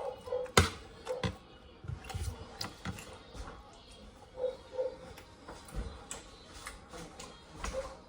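Scattered light clicks and a few dull knocks of someone eating a meal, utensils tapping against a plate.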